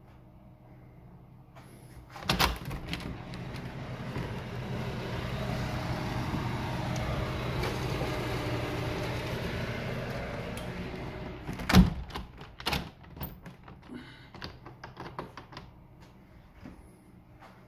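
A window being unlatched and swung open with a sharp clunk, letting in steady outdoor street noise with a low hum, then pushed shut with a loud thud about twelve seconds in, followed by several smaller clicks of the handle and latch.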